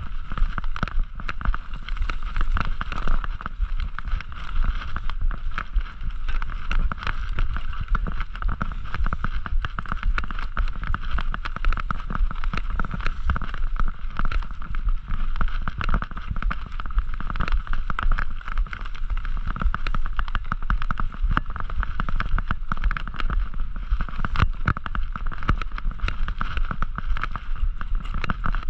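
Mountain bike ridden along an off-road trail: continual rattling and knocking over bumps, over a steady low rumble.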